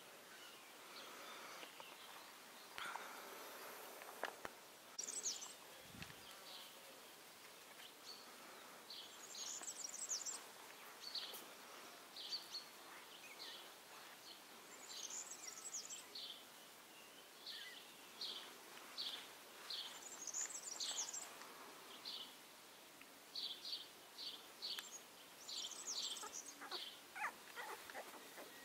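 A songbird singing faintly in short, repeated phrases. Each phrase is a quick run of high chirping notes, and the phrases return every few seconds.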